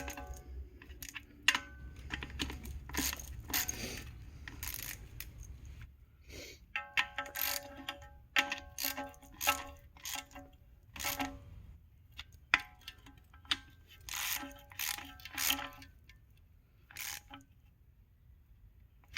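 Metal hand tools and transmission parts clinking and clattering as they are handled and set down, many of the knocks ringing briefly like struck steel. The clinks come at irregular intervals and thin out near the end.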